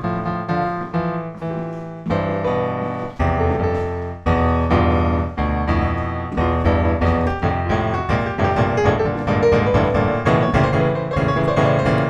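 Background piano music: struck notes and chords, the playing growing fuller and louder about four seconds in.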